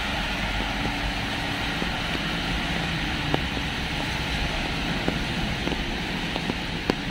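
Street traffic on wet roads: a steady hiss of tyres with low engine hum, broken by a few sharp ticks.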